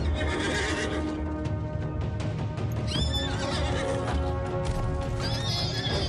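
Mustang stallions squealing and neighing in an aggressive fight, three high-pitched cries in all: just after the start, midway, and near the end. The cries are laid over dramatic orchestral music with a steady pulse.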